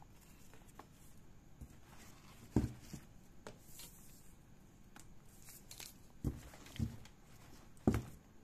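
Handling noise from a nylon waist bag being moved and measured by hand: fabric rustling with four soft knocks against the floor.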